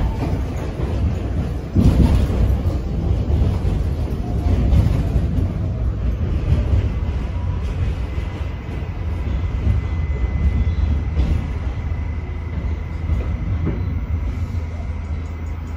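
Running noise inside an R68 subway car in motion: a heavy rumble and rattle from the train on the track. It gets suddenly louder about two seconds in, and a faint steady whine sits above it through the middle.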